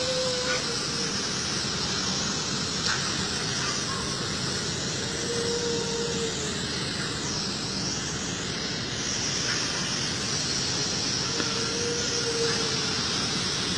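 Steady night-time background noise of the open street with two faint, drawn-out wailing tones, one about five seconds in and one near the end. This is the distant cry that the recorder went out to hear and presents as a woman's scream.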